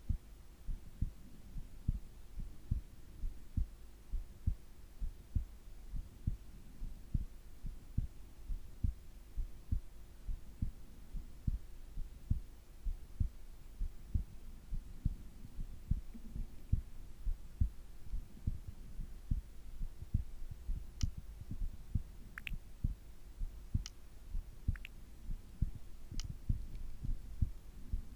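A sleeping person's heartbeat, picked up close to the chest: a steady run of low lub-dub beats over a faint constant hum, with a few faint clicks near the end.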